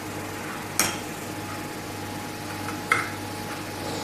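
Metal spoon clinking twice against a glass bowl, about a second in and again near three seconds, as a thick spice paste is mixed, over a steady low hum.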